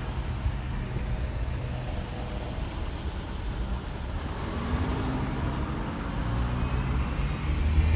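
Steady motor drone from a passing engine, growing louder near the end.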